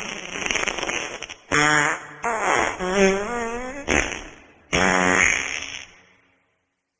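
Wet fart sound effects in quick succession: a sputtering, rattling fart, then three separate farts with a wavering pitch and a short pop between the second and third. The last one ends about six seconds in.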